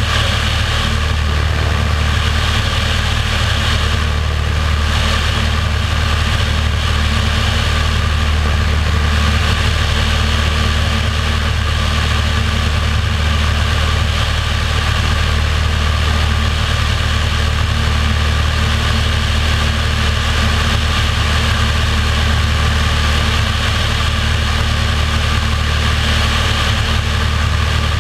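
Single-engine light aircraft's piston engine and propeller droning steadily in cruise flight, heard from a camera mounted outside under the fuselage, with a rush of passing air over the low drone.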